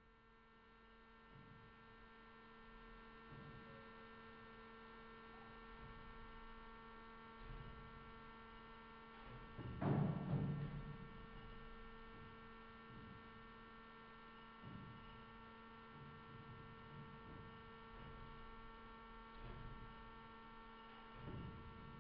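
Steady electrical hum made of a ladder of level tones. Irregular low thuds of waves striking the wave energy converter's tubes come through it every few seconds, the loudest about ten seconds in.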